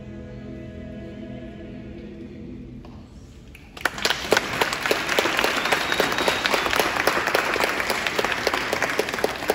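An a cappella vocal group holds a closing chord that fades out about three seconds in. Just under a second later the audience breaks into loud applause that carries on to the end.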